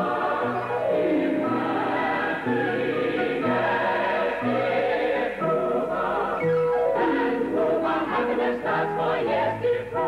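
Music: a choir singing with instrumental backing and low bass notes on a regular beat.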